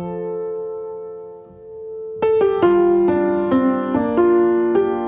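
Upright piano played solo: a held chord fades away, then about two seconds in new notes and chords are struck one after another in a gentle flowing line.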